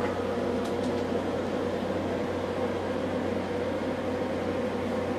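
Steady low hum with an even hiss, like a fan or small motor running, with a couple of faint clicks about a second in.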